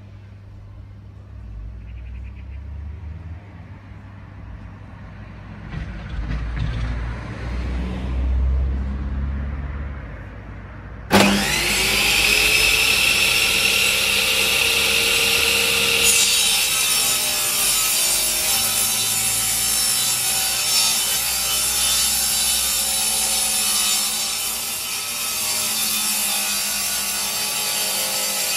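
Parkside PTK 2000 D3 table saw switched on about 11 seconds in, its motor whining rapidly up to speed. About five seconds later the sound changes as the blade starts ripping a long wooden board, and the cut goes on steadily.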